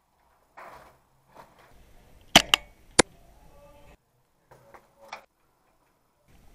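Two sharp shots from an HPA-powered airsoft G3 rifle with a PolarStar Kythera engine, about two-thirds of a second apart, with faint rustling before them.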